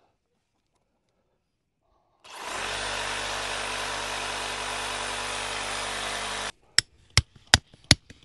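Cordless reciprocating saw running steadily for about four seconds as it cuts through metal conduit, then stopping suddenly. Five sharp hammer blows follow in quick, even succession.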